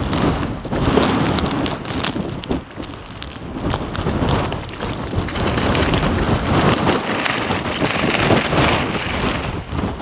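Blizzard wind buffeting the microphone: a loud, rushing, rumbling noise that swells and eases in gusts.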